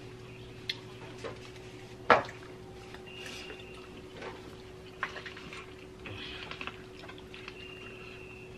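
People eating corn on the cob: wet chewing and biting sounds, with a few small clicks and one sharp knock about two seconds in, over a steady low hum.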